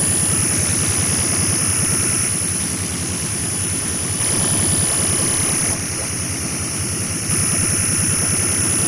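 Electronic noise piece played live from a laptop: a dense, fast low pulsing like an idling machine, under hiss and a thin steady high whistle. Twice the level drops for a second or two, then jumps back abruptly.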